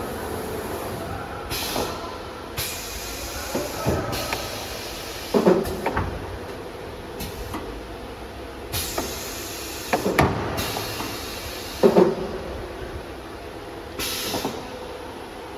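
CNC machine with an automatic labelling unit working: short bursts of compressed-air hiss and several sharp clunks over a steady machine hum.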